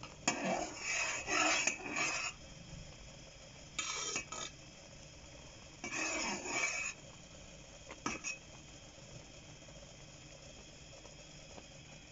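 A spoon scraping around the bottom of a pot of boiling orange marmalade in three bursts of stirring, with a short click about eight seconds in.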